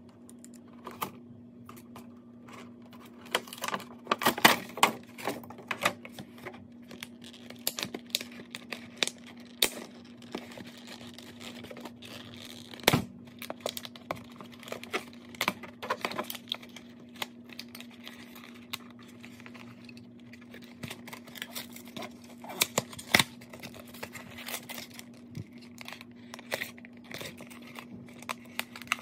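Plastic packaging and the cardboard of a doll box being handled and worked open: irregular crinkling, tearing and clicking, with one sharp crack about halfway through, over a steady low hum.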